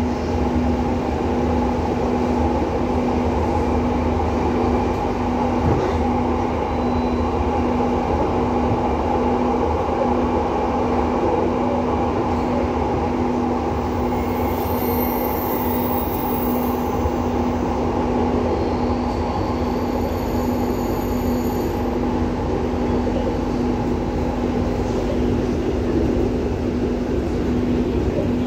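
Palembang LRT car running along its elevated track, heard from inside the car: a steady rumble with a constant low hum. A faint high whine comes in for a few seconds about halfway through.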